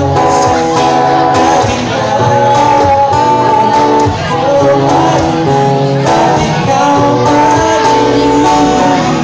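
Live acoustic guitar with a male voice singing a mashup of Filipino pop (OPM) songs, played and sung steadily without a break.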